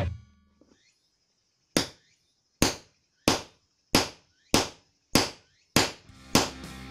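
Hammer striking a hole punch to punch holes in a drum-head sheet: about nine sharp taps, one every two-thirds of a second or so, each with a brief high ring.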